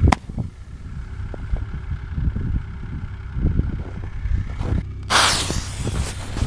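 A sharp crack right at the start, wind buffeting the microphone, then about five seconds in a firework goes off with a sudden loud hissing rush that fades over a second.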